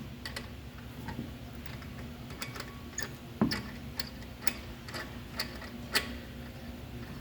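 A series of sharp, light clicks and taps at uneven spacing, roughly one or two a second, over a faint steady hum.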